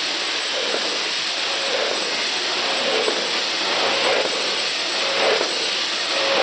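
Automatic nitrogen-flush snack chip packaging machine (vertical bagger under a multihead weigher) running: a steady hiss with a repeating machine cycle a little over once a second.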